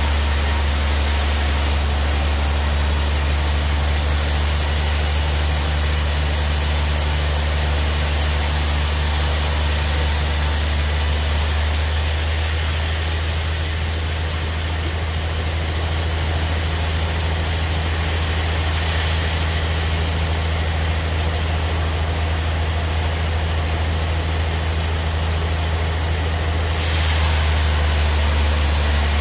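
Log bandsaw sawmill running steadily, with a strong low hum under an even hiss. The high hiss thins out about twelve seconds in and comes back near the end.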